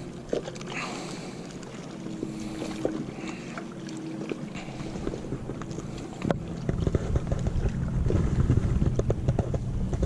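Wind buffeting the camera microphone, with handling knocks as the camera is moved. A steady low hum runs underneath, and the rumble and knocks get much louder about six seconds in.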